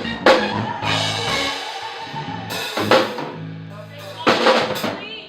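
Live rock band rehearsing: a drum kit with kick, snare and several cymbal crashes over sustained low bass notes. The playing trails off near the end, a false start before the band restarts.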